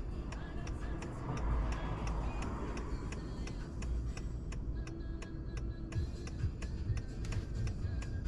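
Honda Accord's turn-signal indicator ticking evenly, about three ticks a second, during a turn, over the low rumble of the car's cabin on the road.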